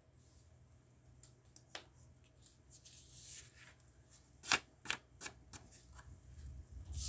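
Drawing paper slid and repositioned by hand on a hardboard drawing board: a soft rustle, then a handful of sharp taps and clicks as tools and paper are set down. The loudest click comes about halfway through.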